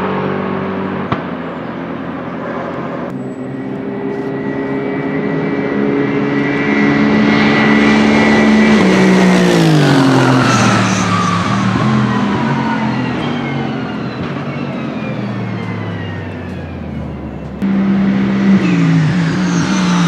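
Aston Martin Vantage GT3 race cars' twin-turbo V8s at speed on a wet track. One approaches with its note holding steady, then drops in pitch as it passes about ten seconds in. After a sudden cut, another runs loudly close by, its note stepping with gear changes.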